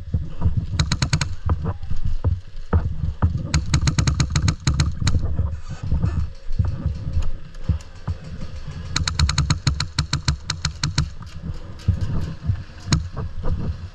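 Airsoft gun firing in three bursts of rapid fire, many shots a second: a short one about a second in, a longer one around four seconds, and another around nine to eleven seconds, over a steady low rumble.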